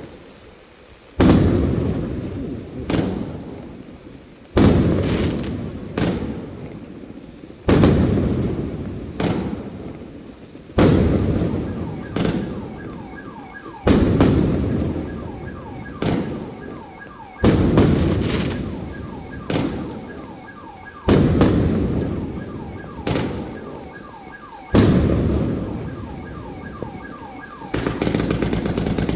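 Consumer fireworks cake firing: a loud shot about every three seconds, each trailing off into smaller pops and crackle, and a rapid string of shots starting near the end. A faint repeating high tone runs underneath from about halfway through.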